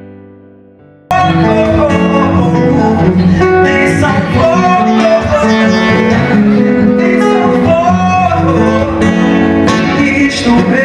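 A soft piano chord fades, then about a second in a song cuts in loudly: singing over guitar and band accompaniment.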